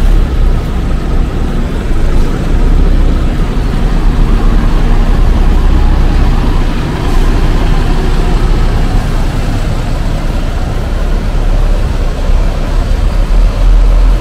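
Volvo B11R diesel engine of a double-decker coach pulling away under power: a loud, steady, deep rumble.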